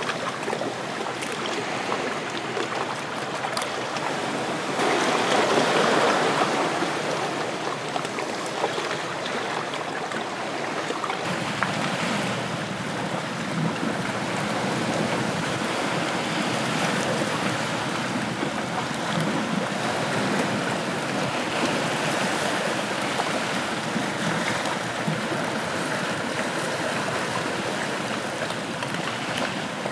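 Small sea waves washing over and splashing against shoreline rocks, a steady wash of water with one louder surge about five seconds in.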